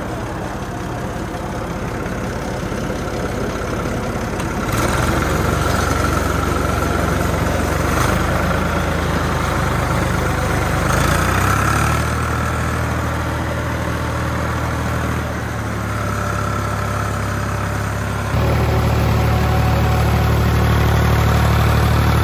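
Tractor engine running steadily while pulling a finish mower, getting louder in steps a few times.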